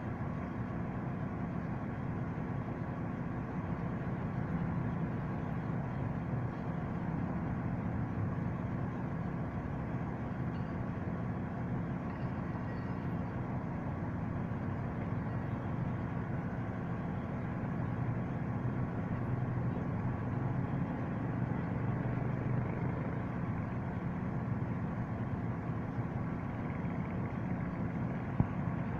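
Heavy diesel engine running steadily with an even low drone, with one brief sharp tick near the end.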